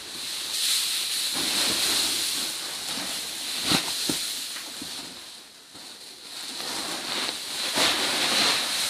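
Chopped straw mushroom substrate rustling and crackling as it is handled in a bag, with a few sharp crinkles.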